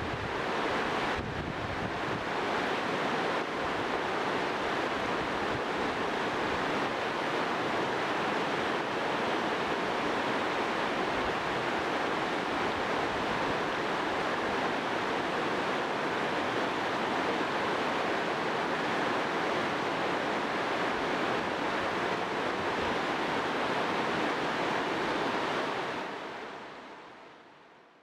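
Azusa River, a fast, clear mountain river, rushing steadily over its stony bed. It fades out near the end.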